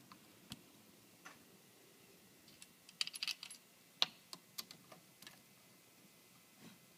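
Light metallic clicks and clinks of small metal parts and tools being handled, with a quick rattle of clicks about three seconds in and a sharper single click a second later.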